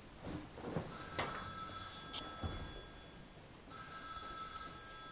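Telephone ringing with a steady, high electronic ring that breaks off briefly about two-thirds of the way through and then rings again. A few soft knocks come in the first second.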